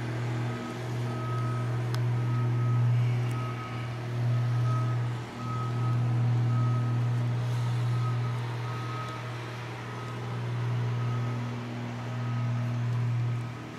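Steady low machine hum that dips in level now and then, with a faint high beep repeating a little more than once a second.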